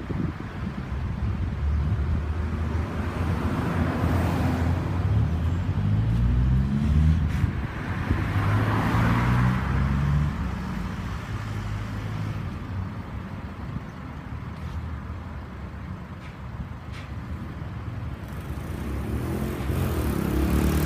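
Road vehicle engine running, its pitch shifting up and down, with traffic and road noise that swells and fades twice.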